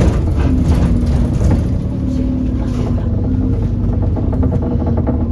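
Alexander Dennis Enviro400 Trident double-decker bus running, a steady low engine rumble with repeated short knocks through it, the knocking sound the bus is known for.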